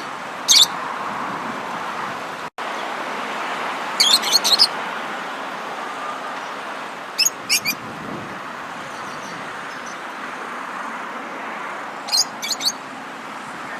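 Small songbird chirping in quick clusters of three to five sharp, high notes, a cluster every few seconds, over a steady background hiss of outdoor ambience. A split-second dropout cuts the ambience about two and a half seconds in.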